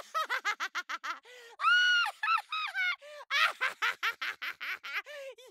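A high-pitched, cartoonish voice chattering rapid nonsense syllables, about eight to ten a second, with one longer drawn-out syllable about two seconds in.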